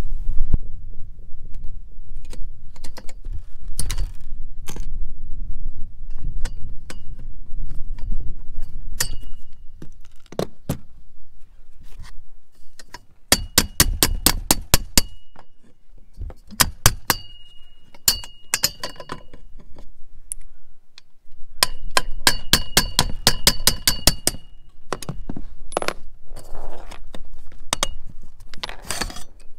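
Small ball-pein hammer tapping a steel hinge pin out of a Winegard antenna mast's metal base bracket. Scattered light metal taps, then two quick runs of rapid ringing taps, about six a second: one about halfway through, the other past twenty seconds.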